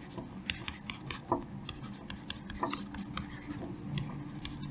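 Stylus scratching and tapping on a tablet's writing surface as words are handwritten: an irregular string of short, light clicks and scrapes.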